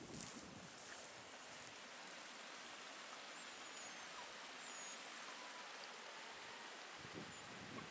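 Small creek running over rocks: a steady, soft rush of water.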